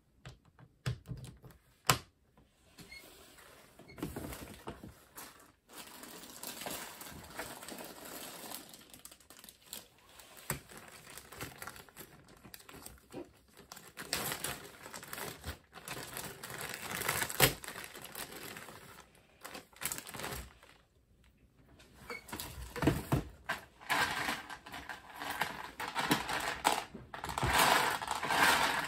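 Plastic LEGO bricks being handled and snapped together: scattered sharp clicks with a few loud snaps, and stretches of denser rattling as pieces are sorted through.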